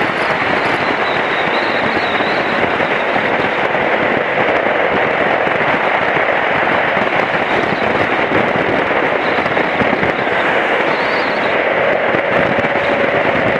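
Loud, steady wind rush and crackle buffeting the microphone of a BMW F700GS motorcycle riding at road speed, with a faint engine note beneath it.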